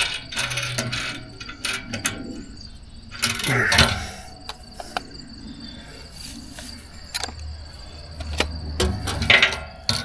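Metal mounting hardware being handled: scattered clinks and knocks, with rustling bursts about three and a half seconds in and again near the end.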